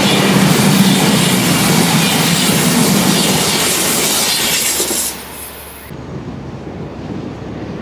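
An SBB passenger train running past close by at speed, the loud rolling noise of its wheels on the rails. The noise drops off sharply about five seconds in as the last coach goes by, leaving a much quieter steady background noise.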